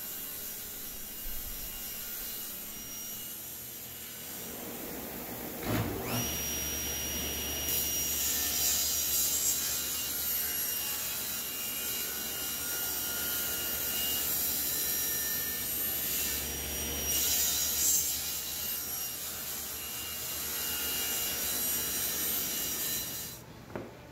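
Table saw running and cutting a glued-up hardwood panel into strips; the cutting noise swells louder twice as the blade goes through the wood.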